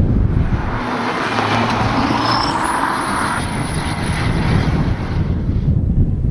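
Mitsubishi Lancer Evolution rally car's turbocharged four-cylinder engine running hard as it drives past at speed, with an abrupt change in the engine sound about halfway through. Wind buffets the microphone at the start and again near the end.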